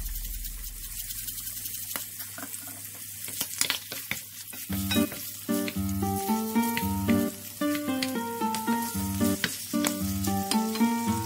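Abalone frying in butter in a stainless steel pan, sizzling with sharp popping crackles. Background music with stepping melodic notes comes in about five seconds in.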